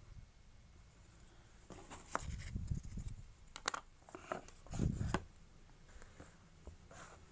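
Small scissors snipping excess modelling clay several times, each snip a sharp click, mixed with handling and rubbing sounds of the clay and tools.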